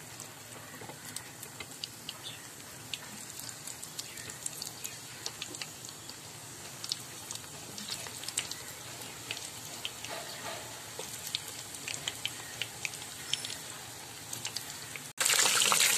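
Cheese triangles deep-frying in hot oil: a steady sizzle with frequent sharp crackling pops. Near the end, after a brief break, the sizzling becomes much louder and denser.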